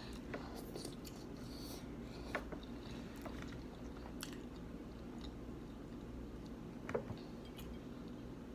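Soft chewing and biting of food close to the microphone, with scattered small mouth clicks and crunches over a low steady hum.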